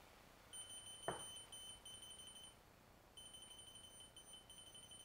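Faint high-pitched electronic whine, on for about two seconds, off briefly, then on again for about two seconds, with one soft knock about a second in.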